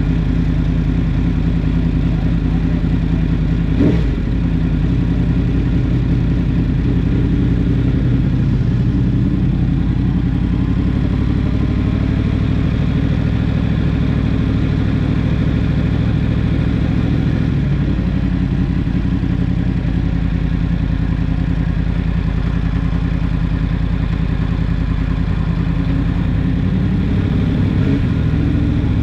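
Yamaha MT-10's crossplane inline-four engine idling steadily just after start-up, with a single clunk about four seconds in.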